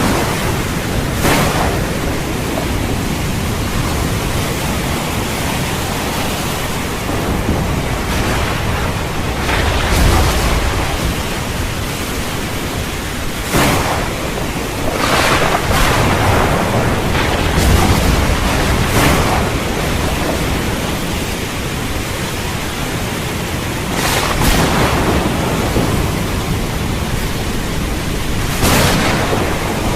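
Heavy rain falling steadily through a thunderstorm, with repeated thunder: sharp cracks about a second in, a cluster of them in the middle, and more near the end, over low rumbling.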